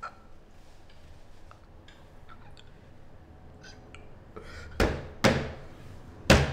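Three short thumps late on, the last the loudest, over faint room tone with a few light clicks.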